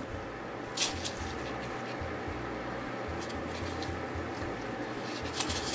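Jute twine rubbing and rustling as it is wound by hand around a fabric-covered egg: a short scratchy rustle about a second in and a longer one near the end, over a low steady hum.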